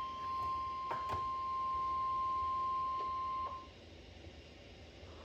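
NOAA Weather Radio 1050 Hz warning alarm tone: one steady beep that cuts off about three and a half seconds in, leaving faint receiver hiss. The tone signals that a warning broadcast follows.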